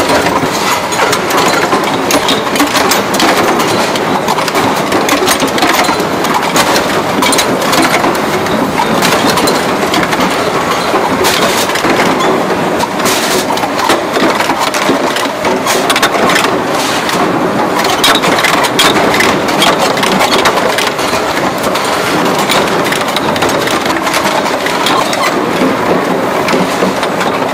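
Mechanical punch presses running on a tinplate can line, with a dense, continuous metal clatter and many sharp knocks throughout.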